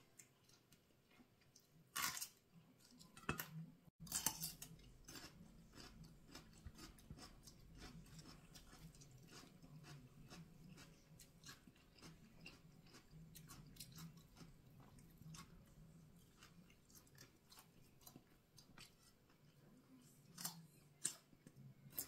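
Close, quiet eating sounds: chewing and crunching of grilled pork salad and raw vegetables, with many small wet mouth clicks. A few louder crunches come around two to four seconds in and again near the end.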